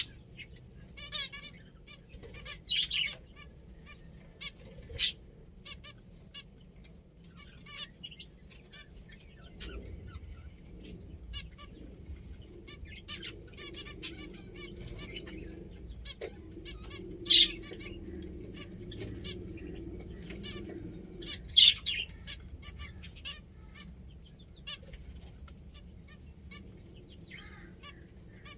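Pet finches chirping: a handful of loud, short, sharp calls scattered through, among softer chirps and small clicks.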